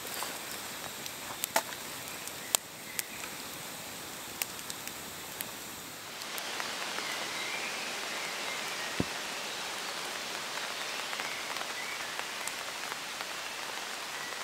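Wood campfire crackling with sharp, scattered pops and snaps. From about six seconds in it gives way to an even hiss of rain pattering on a tent flysheet.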